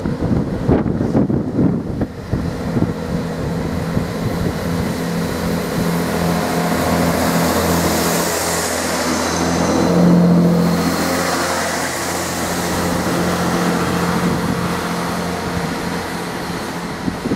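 Chiltern Railways Class 165 diesel multiple unit running along the platform close by, with a steady diesel engine drone. The drone swells to its loudest about ten seconds in, with a hiss as the carriages go past, then eases off.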